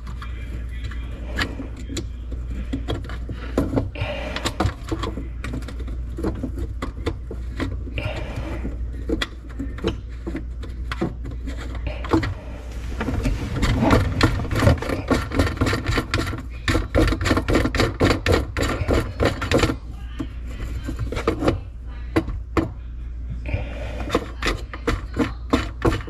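Clicking and scraping of a soap dispenser's mounting nut and fittings being worked by hand under a sink. Scattered clicks at first, then a dense run of quick clicks about halfway through and another near the end.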